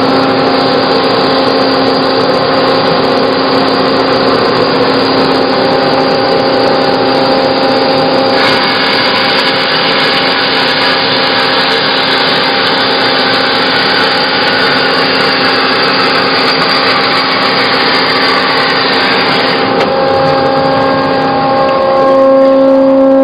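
Hyd-Mech H-16 horizontal bandsaw's blade cutting through a wooden block as the head feeds down: a steady rasping saw noise over the steady hum of the running machine. The sound shifts about eight seconds in and grows louder near the end.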